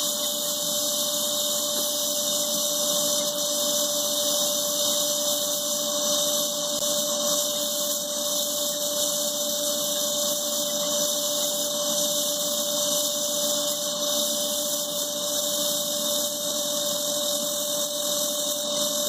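Oxy-gas welding torch flame hissing steadily while brazing a copper still with silver filler rod, with a thin steady tone running under the hiss.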